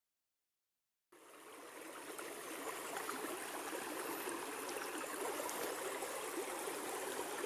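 Silence for about a second, then the steady rush of a small, shallow brook running over a stony bed fades in and holds.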